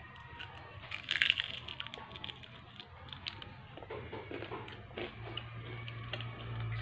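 A person biting and chewing fried siomay off a skewer: a burst of crackly crunching about a second in, then small crunches while chewing. A low hum comes in near the end.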